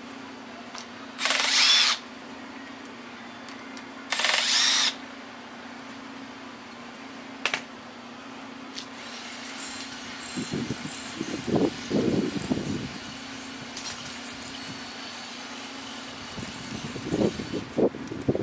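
Cordless Milwaukee power tool run in two short whirring bursts, about a second in and again about four seconds in, backing out the cam chain sprocket bolts. Later, from about ten seconds on, metal clinks and scrapes as the loosened bolts and sprocket are handled.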